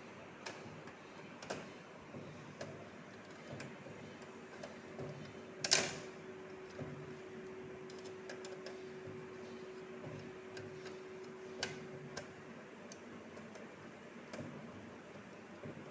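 Scattered light clicks and taps of screws and a screwdriver against a desktop computer's metal case while screws are fitted. One louder click comes about six seconds in, followed by a faint steady tone for several seconds.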